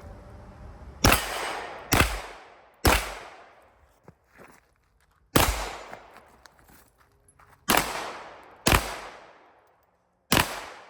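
Seven gunshots from a firearm at a shooting range, each with an echoing tail: three shots about a second apart, a single shot after a pause, two more a second apart, then a last one near the end.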